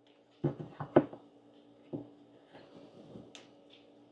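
A handheld LED flashlight being handled: a few dull knocks in the first two seconds, the loudest about a second in, then a sharp click of its push-button switch near the end as it is pressed.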